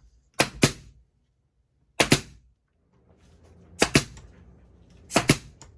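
Pin nailer firing four times, each shot a sharp double snap, driving pins into the wood.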